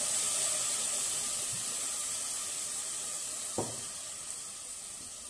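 White wine sizzling in a hot saucepan of onion, garlic and arborio rice fried in olive oil: a steady hiss that slowly fades. A single short knock about three and a half seconds in.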